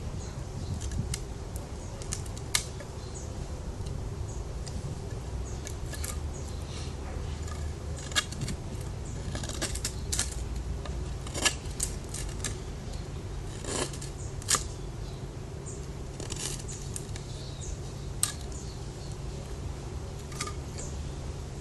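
Cutting work with a Spyderco Paramilitary 2 folding knife: sharp snaps and clicks of the blade going through material at irregular intervals, a second or more apart, over a steady low hum.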